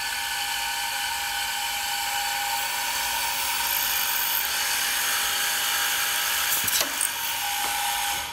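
Multi-spindle drilling head of an Elumatec RMZ 4000 sash assembly centre running, its bits boring a set of holes for hardware fittings through a white PVC window sash profile. It is a steady high whine that starts suddenly, with a couple of clicks about seven seconds in, and cuts off after about eight seconds.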